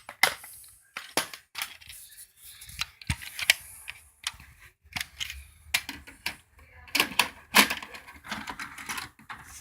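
Irregular clicks and knocks of hard plastic being handled: a VHS cassette and its case being opened and the tape handled.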